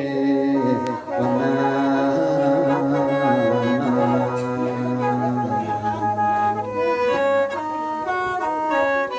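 Instrumental break in an Isan mor lam song of the lam thamnong Sarakham style: a horn-like lead melody moves in short stepped notes over long held bass notes, with no singing.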